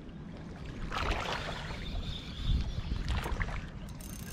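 Water lapping against a rocky shore, an irregular rushing noise with wind rumbling on the microphone.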